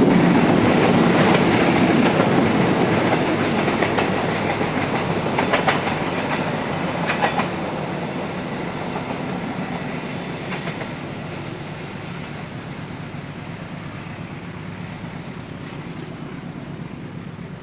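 Passenger train's cars rolling past and away on the track, wheels clacking over the rails, with a few sharper clacks about six and seven seconds in; the sound fades steadily as the train recedes.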